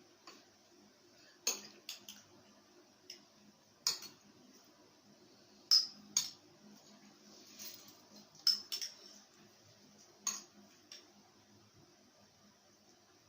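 Cutlery clinking and scraping against plates while people eat: about a dozen short, sharp clinks at irregular intervals.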